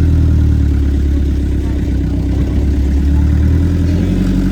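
Vehicle engine running steadily with a deep, low hum, its pitch shifting slightly near the end.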